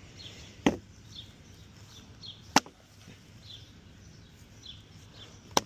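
Restored Japanese masakari timber axe chopping into hardwood: three sharp strikes, about two and three seconds apart, with faint chirping in the background.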